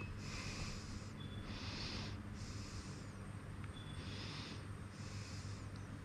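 Insulation resistance tester running a test on an electric-car battery module, giving a faint short beep about every two and a half seconds. Hissing breaths close to the microphone repeat over a steady low hum.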